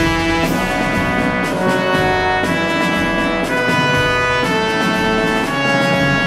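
Background music led by brass, with trumpet and trombone playing held notes over an orchestra; the chords change about once a second.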